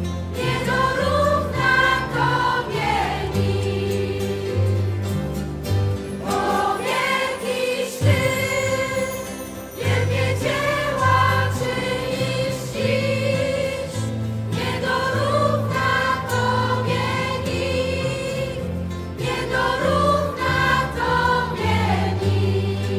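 Polish Christian worship song sung by a choir over instrumental backing with a steady bass line.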